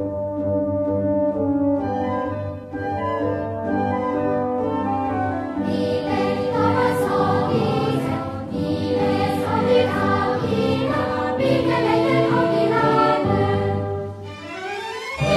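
Symphony orchestra playing slow sustained chords, with a choir joining and the music growing fuller from about six seconds in.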